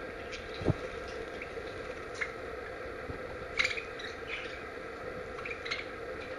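Budgerigars giving short, scattered chirps and tick-like calls, with a brief low thud about a second in.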